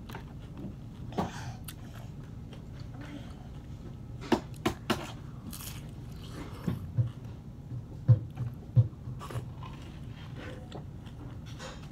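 Close-miked eating of a crisp fried tostada: chewing with a run of sharp crunches, clustered from about four to nine seconds in.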